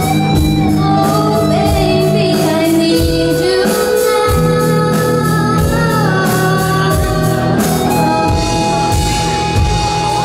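Live rock band playing: female voices singing long held notes over electric guitars, bass guitar and drums keeping a steady beat.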